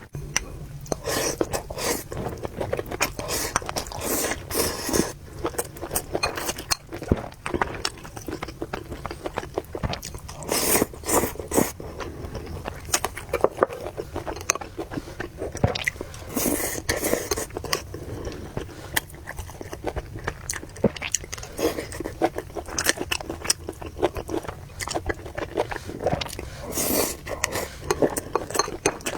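Close-miked eating of noodles and meatballs: steady chewing and biting with many small wet mouth clicks, broken about four times by a longer hissing burst, the sound of slurping noodles or soup.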